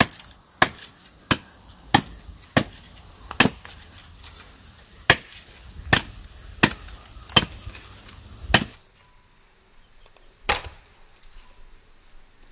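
Firewood being chopped with a hand-held chopper blade: a dozen or so sharp chops at an uneven pace, roughly one a second, then one more chop about ten seconds in.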